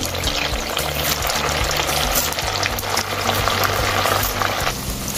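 Potato and semolina rings deep-frying in hot oil in a kadhai, a dense sizzle and crackle that eases off near the end.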